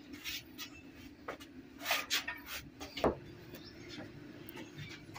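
Bedding being handled on a charpai (woven rope cot): scattered rustles and light knocks, the strongest about three seconds in, over a faint steady low hum.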